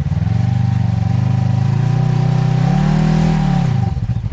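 Side-by-side UTV engine revving, its pitch climbing to a peak about three seconds in and then falling away.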